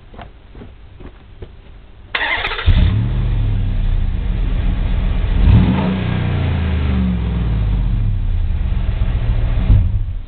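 Dodge Durango's 5.7-litre Hemi V8 cranked by the starter about two seconds in, catching with a flare of revs, then idling through Flowmaster mufflers with the QTP exhaust cutout closed. One quick rev rises and falls about halfway through, and the engine is shut off near the end.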